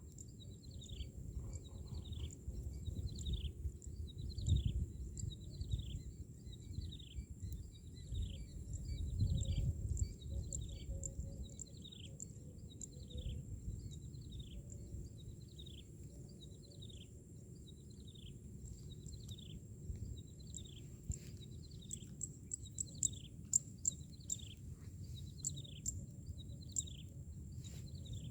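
A bird repeating a short call that drops in pitch, about once a second, over a steady high-pitched whine and a low rumble of wind or water. Several sharp ticks come near the end.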